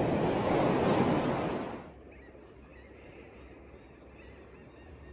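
Open-sea waves rushing and splashing with wind, then an abrupt cut about two seconds in to faint, calm-water ambience.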